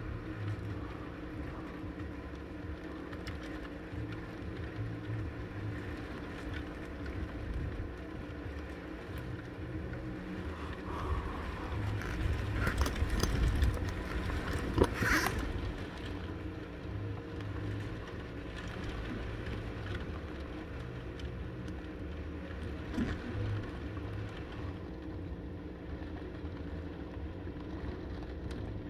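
Driving rain and gusting wind, a steady low rumble that swells louder about halfway through, with a sharp tap or two at the peak.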